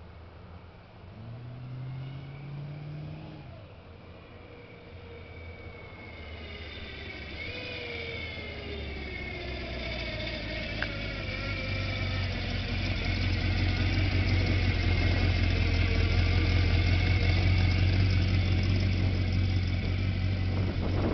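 Ford 302 V8 in a 1959 Willys wagon, breathing through a 2 1/4-inch true dual exhaust with Thrush glasspack mufflers, driving up the road. It grows steadily louder as it approaches and passes close, then eases a little near the end as it slows to turn in.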